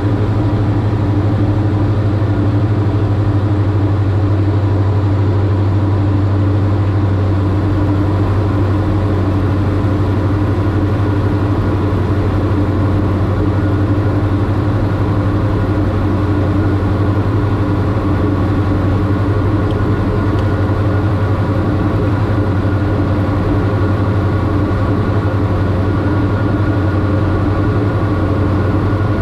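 Steady drone of a Diamond DA42-VI's twin turbo-diesel engines and propellers in cruise, heard inside the cabin: a strong low hum with steady tones above it that does not change.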